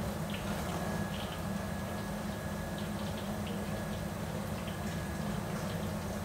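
Steady low hum of kitchen machinery with faint scattered clicks and a little liquid bubbling from the cooking.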